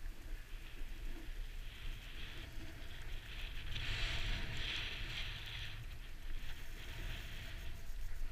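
Snowboard sliding and carving through powder snow, a hiss that swells about halfway through, over a steady low rumble.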